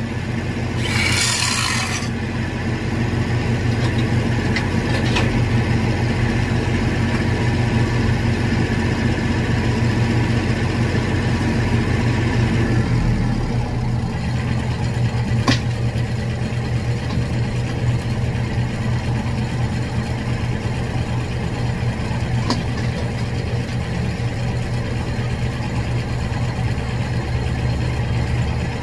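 An angle grinder cuts briefly into the steel pipe at the start. Then the steady running of an engine-driven welding machine carries on. About thirteen seconds in, the higher part of its hum drops away and it runs on lower and steady.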